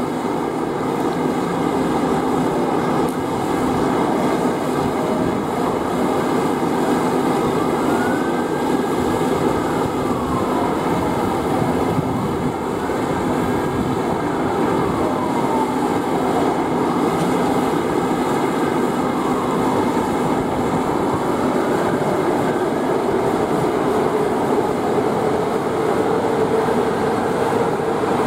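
Softronic Phoenix electric locomotive standing at the platform, its equipment running with a steady, loud hum. Several faint tones glide up and back down a few times.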